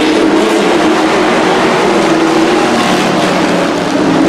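Engines of a pack of dirt-track race trucks running at speed together around the oval, a loud, steady drone of several engines blended into one.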